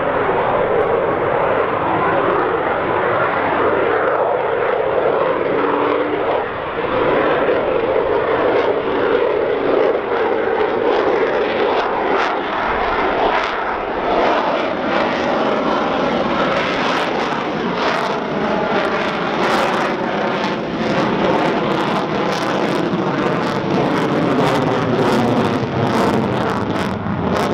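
F-35 Lightning II fighter's single Pratt & Whitney F135 jet engine, loud and steady, passing overhead. From about halfway through a harsh, rapid crackle rides on the noise, typical of the jet in afterburner.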